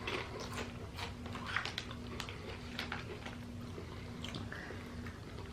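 Someone chewing potato crisps: faint, scattered crunches and mouth clicks.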